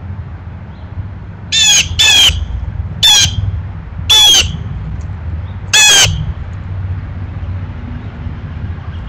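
Blue jay giving five loud calls, each under half a second, spaced irregularly over about four seconds, over a low steady background rumble.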